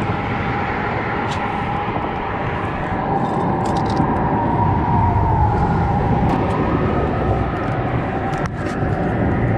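Steady hum of passing road traffic, with a few light clicks and taps scattered through it.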